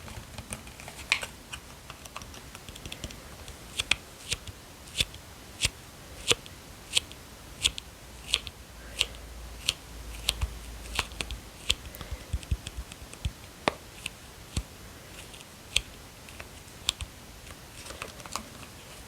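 Fingertips tapping on a plastic shower-gel bottle: a long run of sharp, separate taps, roughly one or two a second.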